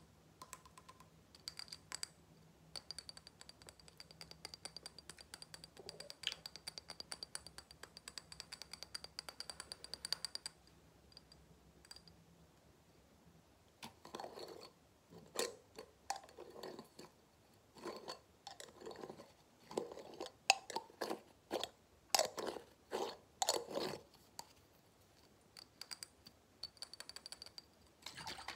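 Fast fingertip tapping on a small blue object, a rapid run of light clicks with a faint ringing tone, stopping about ten seconds in. From about fourteen seconds in comes slower, heavier tapping on a small glass jar of blue liquid with a metal lid, irregular knocks that stop a few seconds before the end.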